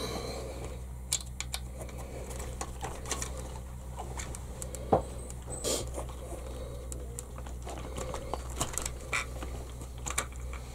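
Light, irregular clicks and taps of hands and small tools on an RC buggy's plastic chassis as the gear housing screws are taken out, over a low steady hum.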